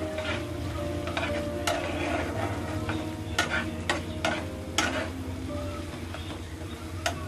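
Metal spatula stirring beef brains through spiced onion paste in a non-stick frying pan, with a low sizzle and irregular sharp scrapes and knocks of the spatula against the pan. The brains have just gone into the fried masala and are being stir-fried (koshano).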